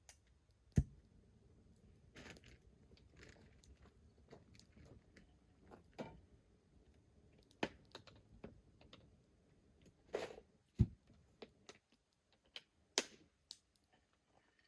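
Irregular faint clicks and knocks of small objects being handled, with two sharper low thumps, one about a second in and one near eleven seconds.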